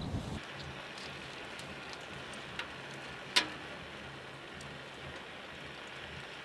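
Wood stove burning under a pot of spruce tea: a steady hiss with scattered small crackles, a sharper crack about two and a half seconds in and one loud pop about a second later.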